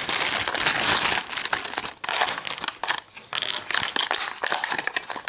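Thin clear plastic toy bag crinkling as hands open it and pull a plastic figure out: dense, continuous crinkling for about the first two seconds, then short separate crackles.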